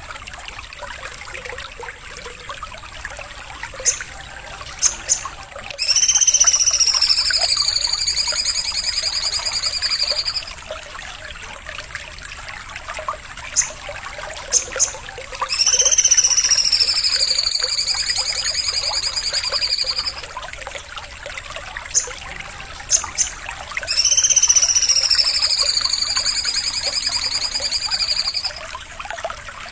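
Songbird song: three long, buzzy, trilled calls of about four seconds each, rising and then easing down. Each is preceded by a few short, sharp chips, over a steady trickle of water.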